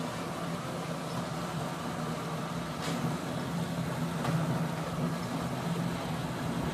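Steady mechanical hum of an elevated amusement-park ride car running along its track, with a faint click about three seconds in.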